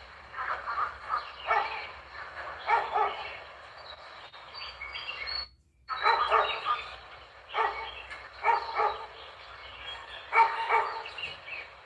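Repeated short animal calls in bursts every second or so, with a brief break about halfway through.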